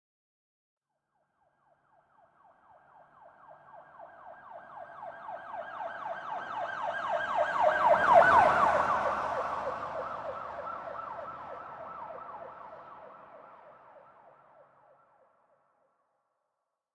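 Police car siren in a fast yelp, passing by: it grows from silence to a peak about eight seconds in, where the vehicle's rumble is briefly heard, then fades away.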